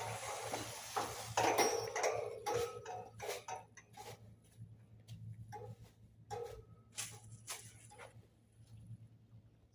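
Irregular light taps and clicks of hard objects, a few with a brief ringing tone, busier in the first couple of seconds and sparser after.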